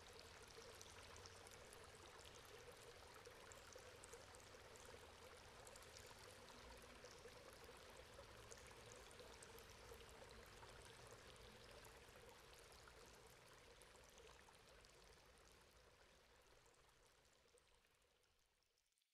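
Water running steadily from a metal grate, an even splashing rush with a faint steady hum underneath. It fades out over the last few seconds.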